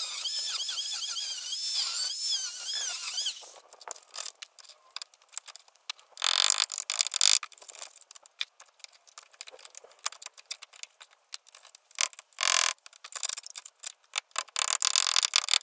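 Angle grinder cutting through the rusty sheet-metal door pillar, its whine wavering in pitch as the disc bites, for about the first three and a half seconds. Then it stops, and scattered taps, clicks and short scraping bursts of metal follow as the cut-out section is worked loose.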